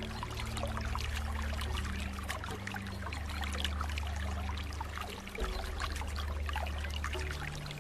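Flowing water trickling and splashing steadily, a dense patter of small droplets, over a low hum that shifts in pitch every second or two.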